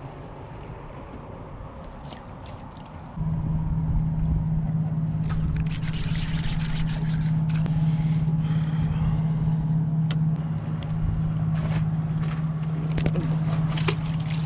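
A steady, low motor hum starts suddenly about three seconds in. Clicks and scrapes from handling the fish and fishing line sound over it.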